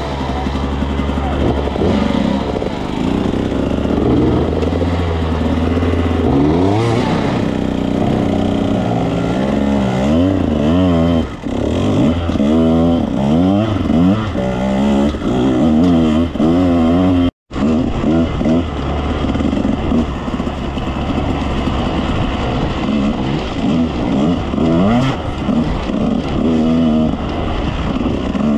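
Two-stroke dirt bike engine revving up and down over and over as the throttle is worked on and off, its pitch rising and falling every second or so. The sound breaks off for an instant a little past halfway.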